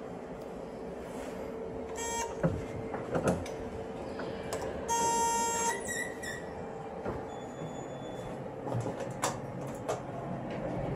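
Lift buttons on a Thyssenkrupp elevator giving a harsh electronic buzz: a short one about two seconds in, then a longer, louder one about five seconds in. Clicks and knocks from the doors and buttons follow as the car is boarded, over a steady low hum.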